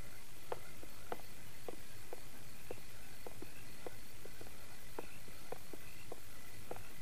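Slow footsteps on wooden porch boards: soft, sharp taps about every half second to second, some in quick pairs. A faint, steady high chirping runs behind them.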